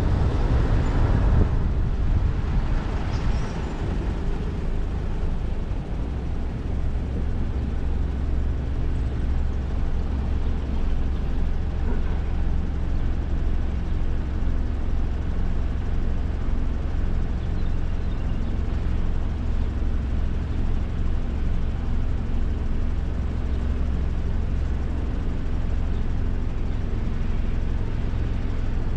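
Steady low rumble of a car driving through city traffic. A louder wash of passing-traffic noise comes in the first couple of seconds.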